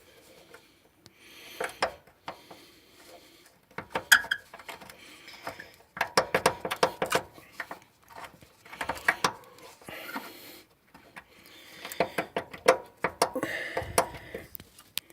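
Metal clinking and tapping of hand tools and a bolt being worked out of a car's rear suspension arm: clusters of short sharp clicks and knocks, busiest in the middle and again near the end.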